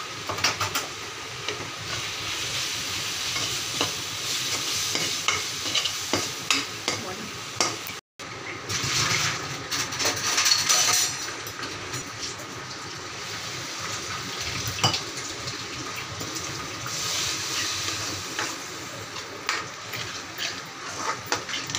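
Onions with red chilli and turmeric powder frying in oil in a metal karahi, sizzling as a slotted metal spatula stirs and scrapes them, with small clicks of the spatula against the pan. The sound drops out for a moment about eight seconds in, and the sizzle swells briefly around ten seconds in.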